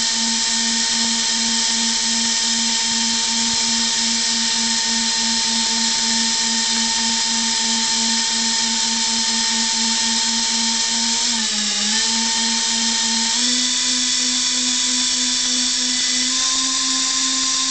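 Twin HiMax 96 mm electric ducted fans running under throttle test: a loud, steady high-pitched whine over a rush of air, with a slight pulsing. About eleven seconds in the pitch dips briefly, then steps up as the throttle is raised, and rises a little again near the end.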